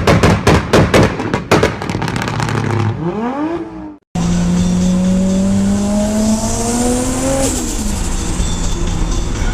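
Turbocharged car engines from two spliced clips. First, an engine revs up and down hard with a rapid string of sharp bangs and chatter between the revs. After a cut about four seconds in, an engine pulls under load with its note and a turbo whistle climbing, then lifts off past the midpoint and the pitch drops away.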